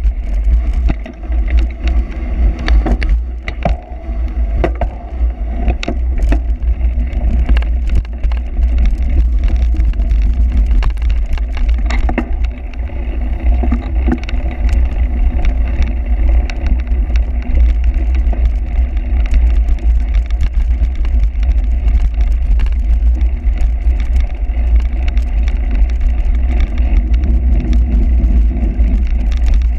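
Wind buffeting a moving camera's microphone, with frequent rattles and knocks from a cyclocross bike riding over rough ground.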